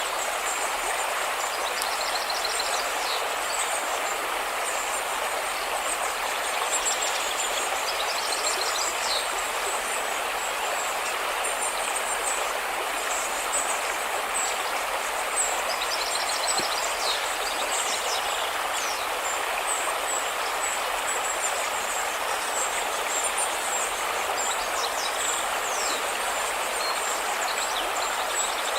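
River water rushing steadily, with birds chirping and trilling high above it, including a few short runs of quick repeated notes.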